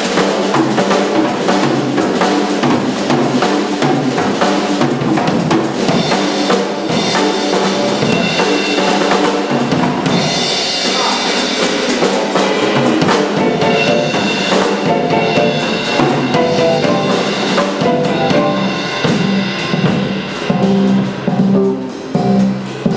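Drum kit played in a jazz tune: a dense, fast run of cymbal, snare and bass drum hits with tom strokes, thinning out briefly near the end.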